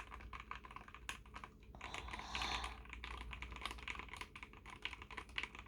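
Rapid, continuous typing on a Dareu EK75 mechanical keyboard with custom switches: a dense stream of key clicks, run together into a near-continuous clatter about two seconds in.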